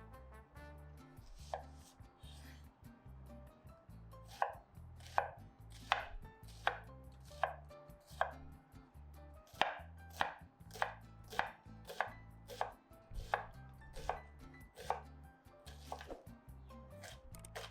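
Kitchen knife chopping vegetables on a cutting board in steady, unhurried strokes, about three every two seconds.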